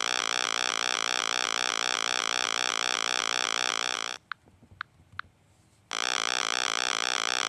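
Synthesized, buzzy electronic helicopter rotor sound effect, pulsing rapidly and steadily. It cuts out for about a second and a half just after the middle, leaving only a few faint blips, then starts again abruptly near the end.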